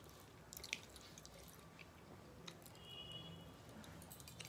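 Near silence with a few faint wet clicks and smacks, the loudest about a second in: fingers working rice on a brass plate and sips of water from a steel tumbler.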